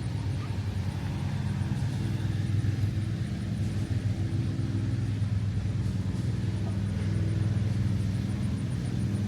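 An engine running steadily at a constant speed, a low even drone with no change in pitch.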